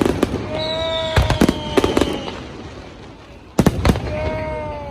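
Fireworks bursting overhead in clusters of sharp bangs: one at the start, a quick run about a second in, and a tight group near four seconds. Between them a drawn-out tone, steady to slightly falling, sounds twice.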